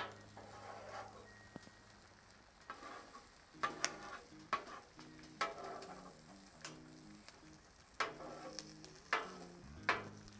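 Eggs sizzling on a Blackstone flat-top griddle, with a metal spatula scraping and clicking on the steel plate in a series of irregular strokes as the runny eggs are pushed back together into a pile.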